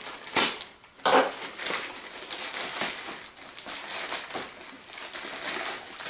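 Plastic poly mailer bag crinkling and rustling as it is slit and pulled open by hand, in irregular crackles with a couple of sharper rips about half a second and a second in.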